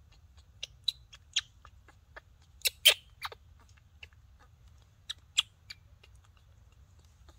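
Baby macaque's mouth smacking and clicking as it eats banana, in short irregular bursts, with the loudest cluster about three seconds in and another pair a little after five seconds.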